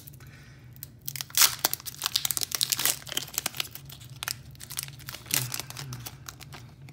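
Foil booster-pack wrapper of Pokémon trading cards being torn open and crinkled in the hands: a dense run of sharp crackles, loudest about a second and a half in, easing off near the end as the cards come out.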